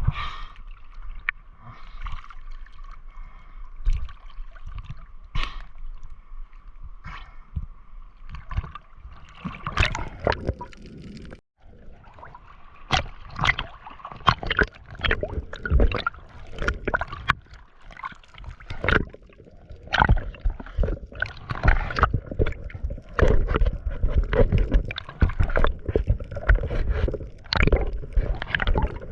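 Water sloshing and gurgling, with many sharp knocks and clicks throughout and busier in the second half. A steady high whine runs under it at first and stops at a brief dropout about eleven seconds in.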